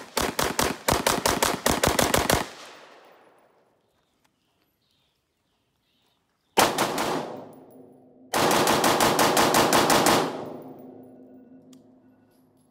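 Rapid semi-automatic-style strings of fire from AR-15-style rifles fitted with a ZRODelta Cowl Induction Brake Gen 2 muzzle brake: about a dozen quick shots over the first two and a half seconds, a silent gap, then two or three shots and a faster string of about fifteen, each string trailing off in echo.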